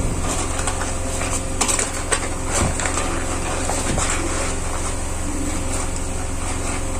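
Steady low hum of room noise, with a few faint rustles and crackles as hands break a piece off a lump of raw African black soap in its paper wrapping.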